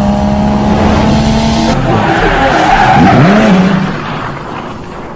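Car sound effect: an engine and screeching tyres, then a swooping whoosh, dying away near the end.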